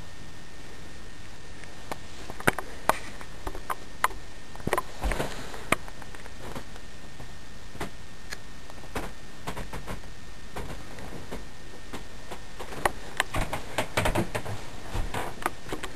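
Steady hiss from a handheld camcorder's microphone, with scattered light clicks and knocks of handling noise. These come in two clusters, a few seconds in and again near the end.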